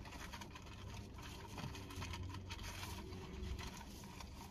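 Car engine idling, heard from inside the cabin as a steady low hum, with faint rustling and small knocks of someone rummaging by the seat.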